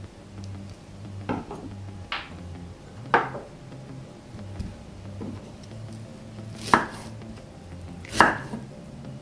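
Kitchen knife chopping onion on a wooden cutting board: five separate knocks of the blade against the board, irregularly spaced, the last two loudest.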